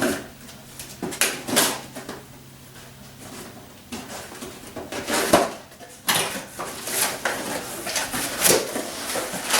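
Parts being unpacked by hand: packaging rustling and rummaging, with scattered knocks and clinks of metal parts as a billet flywheel is taken out of its box.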